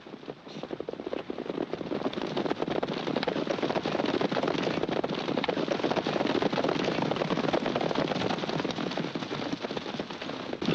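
A group of horses galloping hard, a dense, fast clatter of hoofbeats that builds up over the first couple of seconds and then runs on steadily.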